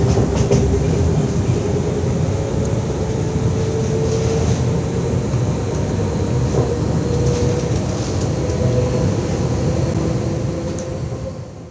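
SNCF Z 2N double-deck electric multiple unit running: a steady low rumble with a motor whine that rises slightly in pitch over the first few seconds and then holds steady.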